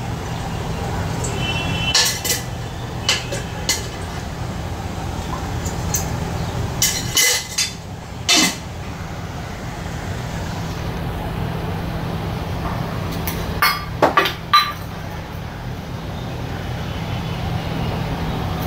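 Metal kitchen utensils and pans clinking and knocking every few seconds over a steady low hum.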